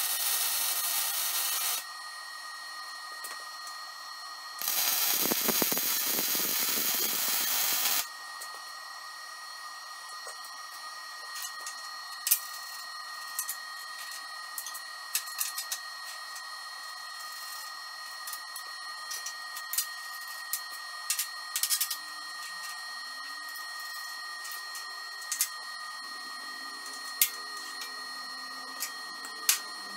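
MIG welding on steel tubing: two bursts of arc hiss and crackle, the first about two seconds long and the second about three and a half seconds, stopping sharply. After that come scattered clicks and clanks as the steel parts and clamps are handled.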